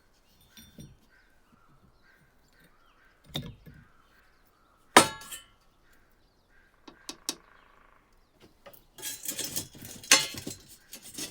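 Metal objects handled on a workbench: a knock, then a sharp metallic clink with brief ringing about five seconds in, a few small clicks, and a run of clattering and scraping near the end.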